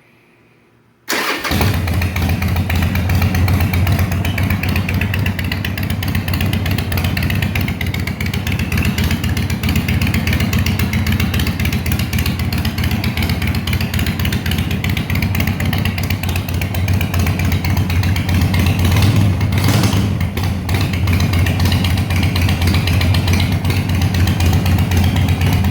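2004 Harley-Davidson Sportster 1200 Custom's air-cooled V-twin starting cold about a second in and then running steadily through Screamin Eagle II mufflers with the baffles removed and DK Customs Thunder Torque inserts fitted. This is its first start on the inserts, and the owner thinks it may need a little more choke.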